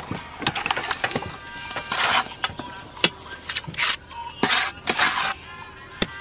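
A metal trowel knocking and scraping against handmade clay barrel roof tiles as wet cement mortar is packed and smoothed around them. It makes a string of sharp clicks and taps, with a few longer scrapes around the middle.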